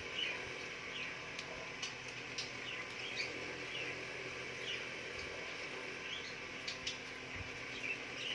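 Faint short bird chirps, one every second or so, over a steady low hiss, with a few light clicks.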